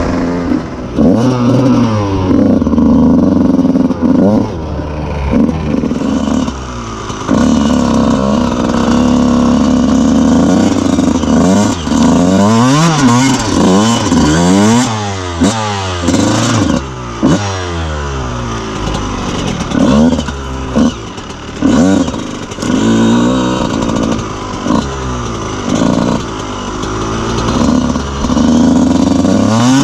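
125cc two-stroke motocross bike engine revving hard and falling back over and over, with quick throttle chops and rapid blips where the pitch swings up and down.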